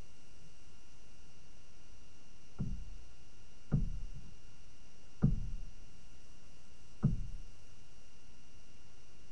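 Four dull, low knocks, one to two seconds apart, over a steady faint hiss with thin constant whine tones.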